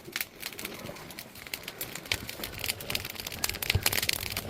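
Firewood burning with dense, irregular crackles and pops, coming thicker from about halfway through.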